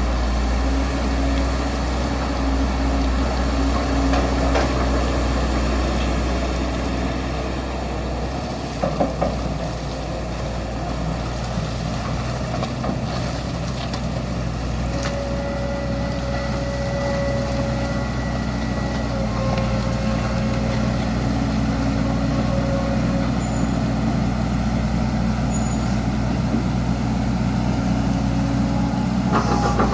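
Heavy diesel engines of an excavator and a sand truck running steadily while the excavator loads the truck, with a few short knocks about nine seconds in and a thin whine partway through.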